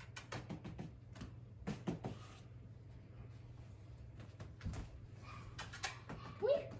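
Scattered light taps and knocks on a hardwood floor, from a small puppy moving about beside a bridge of foam pool noodles while hands shift the noodles. There is a short high squeak near the end.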